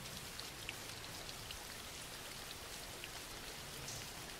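Steady background rain: a soft, even hiss with a few faint scattered drop ticks.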